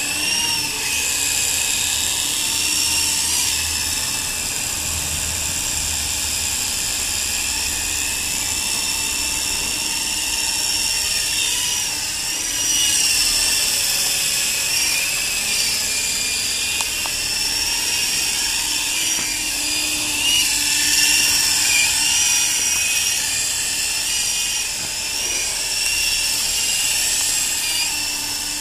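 Volitation 9053 toy RC helicopter in flight: the high electric whine of its motors and spinning rotors, steady in loudness, with the pitch wavering slightly as the throttle is worked. It swells a little louder around the middle and again about two-thirds through.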